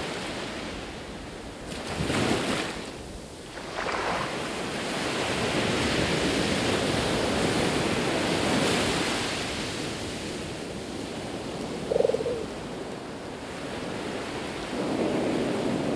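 Ocean surf breaking and washing up a sandy beach, the rush of water swelling and ebbing with each wave.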